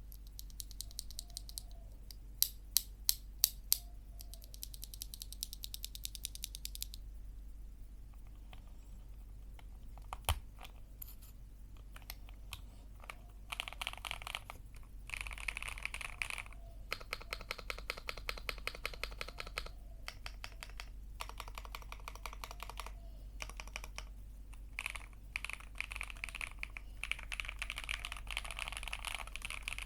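Typing on a Lychee Heiji Snake AL65, a 65% CNC-aluminium custom mechanical keyboard, with Beat the Lemon linear switches and Cherry-profile double-shot keycaps. Scattered keystrokes come first, with a few louder strokes about two to four seconds in and one sharp one near ten seconds. From about thirteen seconds on there are fast runs of typing with short pauses.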